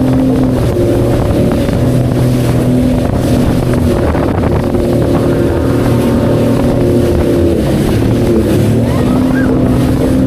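Sea-Doo FishPro Scout jet ski's engine running under way through choppy water, its pitch dipping and coming back up a few times as the throttle changes.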